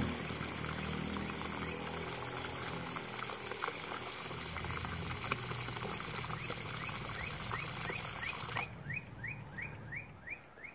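Garden hose running water into a shallow plastic pot of muddy water, the stream churning and bubbling at the surface, until it cuts off suddenly near the end. A quick series of short rising plinks follows, about three a second.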